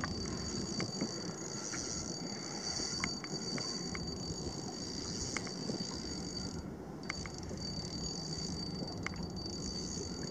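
A steady high-pitched whine over a low hum, dropping out briefly about two-thirds of the way through, with scattered light clicks.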